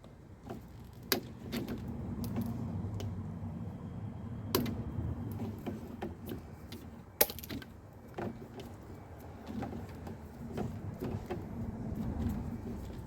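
Hands working on a car's wiring loom, handling and wrapping the wires with cloth tape: scattered clicks and knocks, the sharpest about a second, four and a half seconds and seven seconds in, over a low steady hum.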